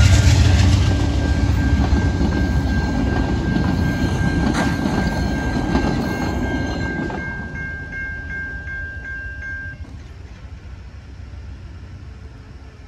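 VIA Rail passenger train passing over a road level crossing: a loud low rumble with wheel clacks that fades away as the train clears, going quieter from about seven seconds in. A steady high-pitched tone runs through most of it and stops about ten seconds in.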